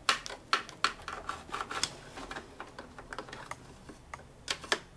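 Irregular light clicks and short scratches of a cleaning tool working against the metal parts under a sewing machine, around the hook, while lint and thread ends are cleared out. A pair of sharper clicks comes near the end.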